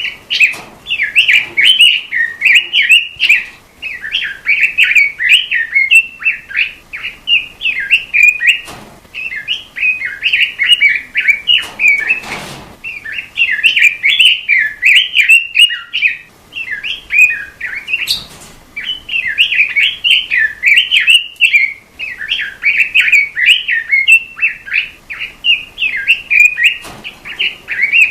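Robin, the red-billed leiothrix or Pekin robin, singing a long, fast, warbling song of quick chirps, broken by short pauses every few seconds. A few faint knocks are heard under the song.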